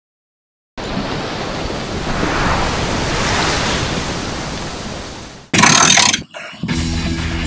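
A rushing, surf-like sound that swells up and fades away over about five seconds, following a moment of complete silence. A short, loud burst of noise follows, and music with steady notes starts near the end.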